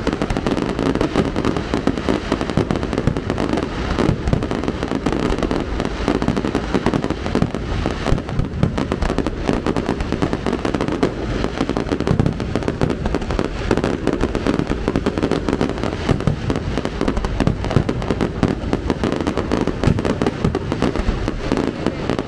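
A fireworks display going off in a dense, unbroken barrage of bangs and crackles, with no let-up.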